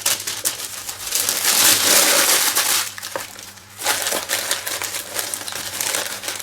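Paper packaging being handled and crinkled: a dense, rough crackle in two long stretches, loudest about two seconds in, easing briefly past three seconds and then starting again.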